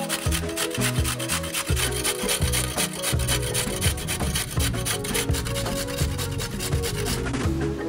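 Carrot being grated on a stainless-steel box grater: quick, repeated rasping strokes that stop near the end, over background music.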